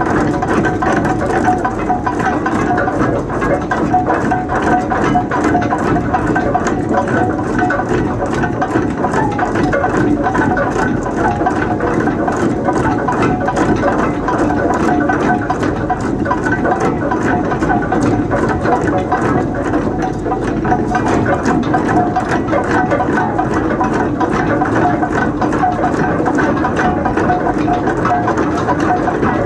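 Ship's anchor chain paying out over the windlass gypsy and down the chain pipe as the anchor is dropped: a loud, steady metallic rattling clatter of many rapid clanks that goes on without a break.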